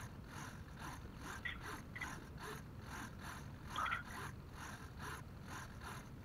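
Small hobby RC servos whirring in short strokes, about three a second, as their arms sweep back and forth on the receivers' commands, a sign that the radio link is still holding.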